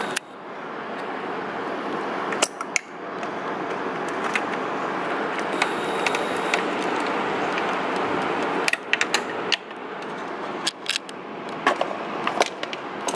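Plastic clicks and small rattles as a car's trim clip and wiring-harness connectors are worked loose by hand, mostly in the last few seconds. Under them runs a steady rushing noise that eases off about nine seconds in.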